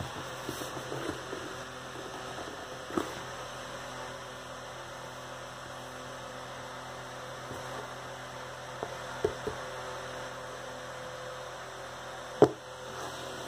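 A hand tapping and handling a cardboard 12-pack beer carton: a few short, sharp taps, the loudest about twelve seconds in, over a steady low hum.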